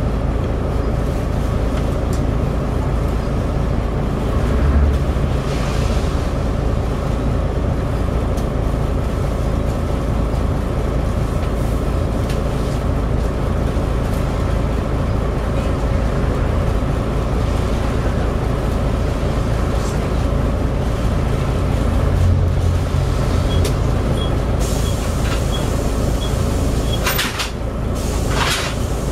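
Volvo B7TL double-decker bus heard from inside: the engine and its loud, whining cooling fan (the 'hoover') run steadily under way. Short air hisses come near the end.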